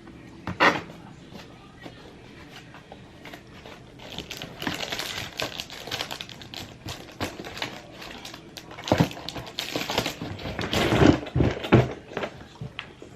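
Handling noise: a sharp knock about half a second in, then a run of irregular clicks and rustling, with heavier knocks near the end.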